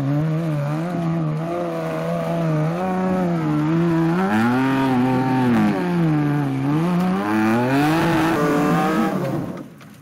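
Engine of a Suzuki-badged off-road competition 4x4 working under load as it crawls over rocks, its note rising and falling with the throttle. The sound drops away sharply just before the end.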